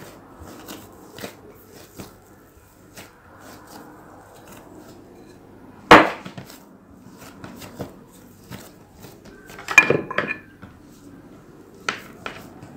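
Kitchen utensils knocking on a wooden tabletop while dough is handled: one sharp knock about six seconds in, and a clatter of several knocks with a brief metallic ring around ten seconds in. Soft handling sounds from the dough and a knife come in between.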